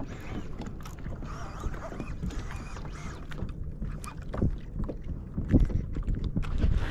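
Wind on the microphone and water against a kayak's hull. A fishing rod and reel give scattered knocks and rattles as a hooked fish is reeled in, most of them in the second half.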